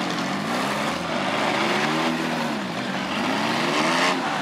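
Demolition derby car engines revving up and down, more than one at a time, the pitch rising and falling every second or so. A short louder burst of noise comes about four seconds in.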